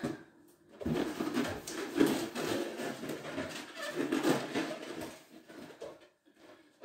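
Inflated rubber balloons rubbing and squeaking against hands and each other as they are handled, with irregular scratchy squeaks from about a second in until shortly before the end.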